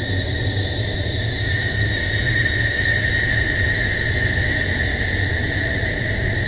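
Steady droning hum: a high whine over a low hum and hiss, unbroken throughout.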